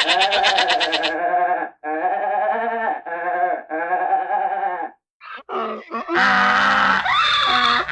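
A run of separate animal-chatter sound effect clips: pitched, wavering, bleat-like calls, each a second or so long with short breaks between them, then several calls overlapping near the end.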